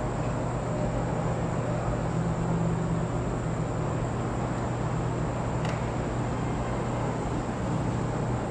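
Steady background hum and hiss with no change in level, a low drone underneath; a single faint click about six seconds in.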